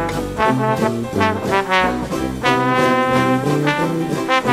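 Background jazz music led by brass instruments, with a moving bass line under it.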